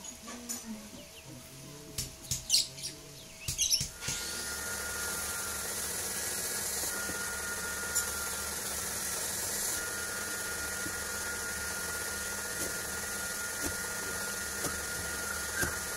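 A Böhler N695 steel chef's knife chopping through thick rope on a wooden board to test its edge, a light knock about once a second near the end. Under it runs a steady hum with a thin high whine, and a few sharp clicks and knocks come in the first few seconds.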